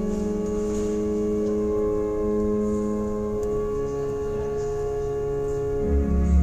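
Background ambient music of long held, organ-like tones changing slowly in pitch; a deep bass note comes in near the end.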